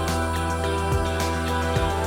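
Background music with a steady beat, sustained melodic notes and a bass line.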